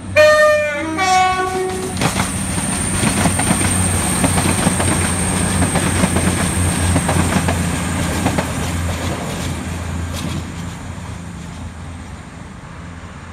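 CrossCountry Voyager diesel train sounding its two-tone horn, a high note then a lower one, at the start. Its underfloor diesel engines then run as it pulls away, with wheels clattering over the track as it passes, fading near the end.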